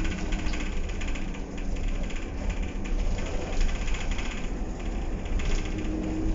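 Optare Solo single-deck bus on the move, heard from inside the passenger saloon: a steady low rumble of engine and road, with interior fittings rattling throughout. A humming note fades out in the first second and returns near the end.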